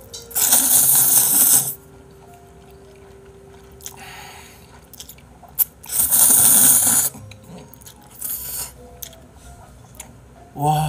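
A man slurping spicy stir-fried instant noodles: two long, loud slurps, the first about a second in and the second about six seconds in, with softer chewing noises between.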